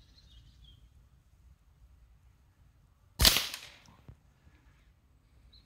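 A single shot from a moderated .22LR semi-automatic rifle (a Ruger 10/22-type Rimfire Magic), sharp and loud about three seconds in and dying away within a second, followed by a faint knock.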